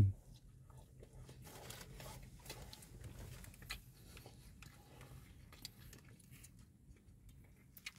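Faint chewing of a mouthful of doner kebab meat and naan bread, with scattered soft mouth clicks.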